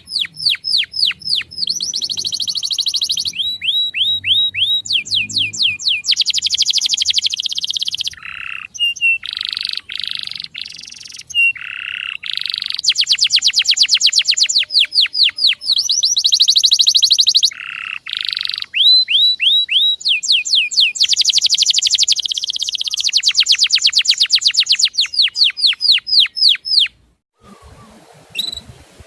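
Male canary singing: long tours of rapid repeated chirps, each phrase a fast trill of one note type before switching to the next, some stretches buzzier. The song cuts off abruptly near the end, leaving only a couple of faint calls.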